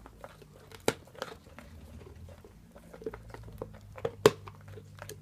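English mastiff gnawing and crunching a bone: irregular sharp cracks and clicks, the loudest crack about four seconds in.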